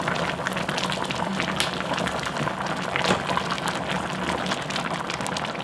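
Kimchi-jjim broth bubbling at a full rolling boil in a pot on high heat, a steady hiss full of many small, quick bubble pops, with a low steady hum underneath. The vigorous boil marks the point to turn the heat down to medium.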